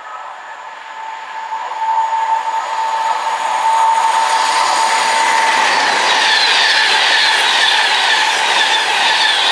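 Class 390 Pendolino electric express train approaching at speed and passing straight through the station. It grows louder over the first few seconds, with a steady whine that fades about halfway, then a loud, continuous rush of wheel and air noise as the carriages go by.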